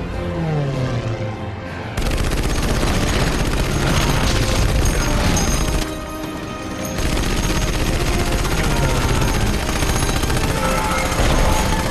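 Battle sound effects, rapid gunfire and explosions, over background music. It opens with a falling tone and turns dense and loud about two seconds in, easing briefly around the middle.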